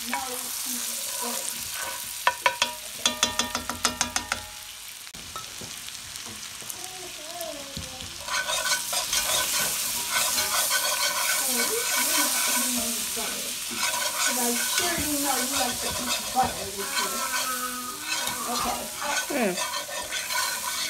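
Butter and vegetables sizzling in a cast iron skillet while being stirred, with a quick run of sharp taps about two seconds in. From about eight seconds in the sizzling grows louder, and a wire whisk scrapes the pan as flour is worked into the butter to make a roux.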